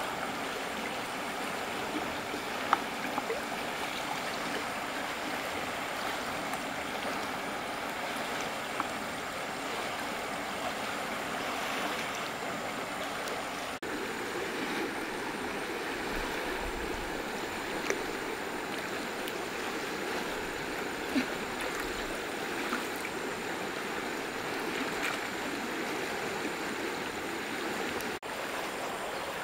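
Shallow river water flowing steadily over the riverbed, a continuous rush, with a few brief clicks.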